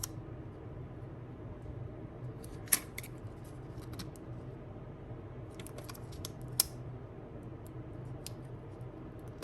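Small clicks and taps of hands working on smartphone parts and adhesive strips, two sharper clicks near a third of the way in and again about two-thirds through, over a steady low hum.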